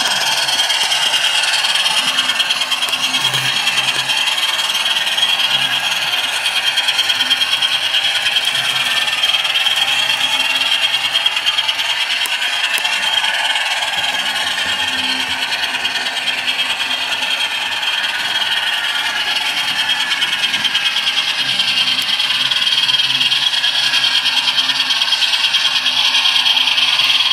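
Digital sound-decoder recording of twin turbocharged Alco 539 diesel prime movers running at speed, played through the small onboard speaker of an HO-scale DL109 model locomotive fitted with a LokSound Select Direct decoder. The model's wheels and mechanism rattle along the track underneath it.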